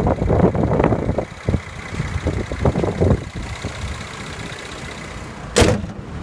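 The 3.5-litre V6 of a 2014 Mercedes-Benz E350 idling with its hood up, with irregular handling noise early on. A single sharp, loud thud comes about five and a half seconds in as the hood is slammed shut.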